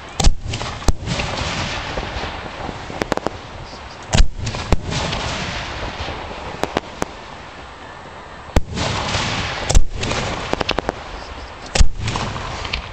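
Aerial fireworks shells firing from 4- to 6-inch mortar tubes close by: several sharp, loud booms a few seconds apart, with a steady rushing noise between them.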